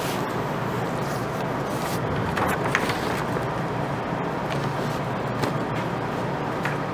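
Steady background hiss with a low hum, with a couple of brief faint rustles about two and a half seconds in.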